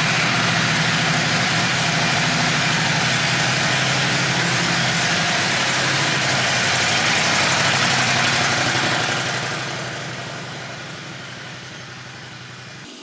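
A motor vehicle's engine running steadily, then fading away over the last few seconds before cutting off near the end.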